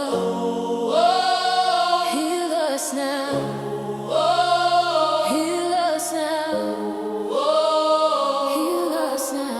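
A choir singing a wordless, drawn-out melody in phrases of about three seconds, over sustained chords.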